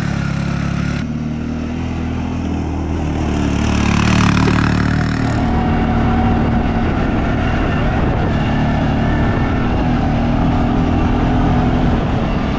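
Off-road vehicle engines, UTV and ATVs, running while under way on dirt tracks, with a heavy low drone and some rise and fall in engine pitch. The sound changes abruptly about a second in and again around five and a half seconds in.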